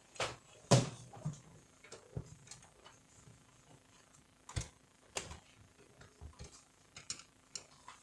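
Scattered clicks and knocks of a Canon iR2016/iR2018 copier fuser unit being handled and set down on a desk, its plastic and metal parts tapping, with the loudest knock just under a second in.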